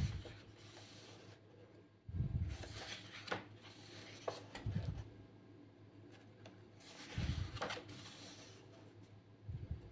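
Pages of a thick illustrated book being turned by hand: five times, a paper rustle with a soft low thump as the page is handled and laid down, about every two to two and a half seconds.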